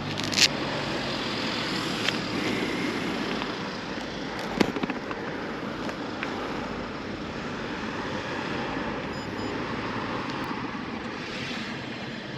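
Motorcycle under way, with a steady rush of wind noise over the microphone covering the engine. Two sharp knocks stand out, one about half a second in and another a little past the middle.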